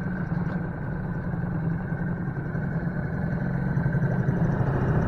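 Small outboard motor on an aluminium john boat running steadily at a constant speed as the boat cruises along.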